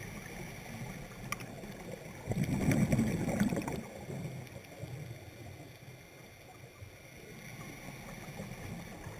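Underwater sound picked up through a dive camera's housing: a steady hiss, with a louder gurgling burst of scuba exhaust bubbles lasting about a second and a half, starting about two seconds in.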